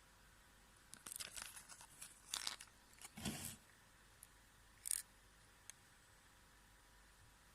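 Packaging being torn and crinkled by hand in a quick run of rustles and rips, followed about five seconds in by a single sharp click.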